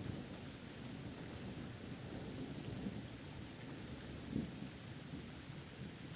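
Thunderstorm: steady rain with low rolling thunder, swelling to a louder rumble about four seconds in.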